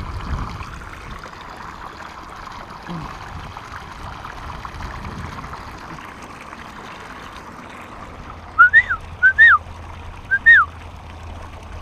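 Steady hiss of wind and water, then about eight and a half seconds in three short, loud whistles, each rising and then falling in pitch, spaced about a second apart.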